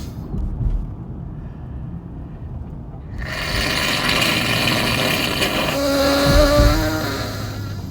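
A person blowing a congested, snotty nose: a long, rushing blow starting about three seconds in that turns into a buzzy honk for about a second near the end, with the low rumble of a car on the road underneath.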